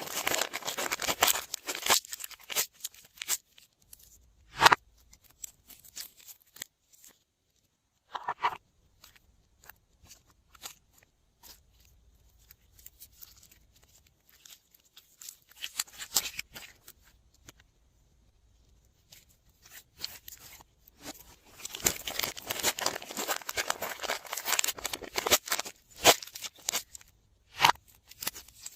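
Crinkling and crackling from handling slime-making materials, in bursts with quiet gaps and a few sharp single clicks, the densest stretch coming near the end.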